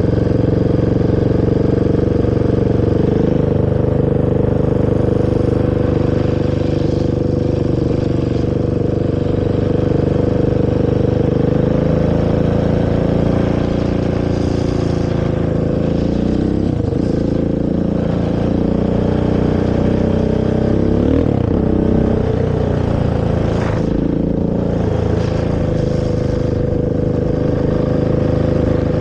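Honda TRX450R quad's single-cylinder four-stroke engine through its stock exhaust, running steadily under way, then revving up and down several times from about halfway through before settling back to a steady pitch.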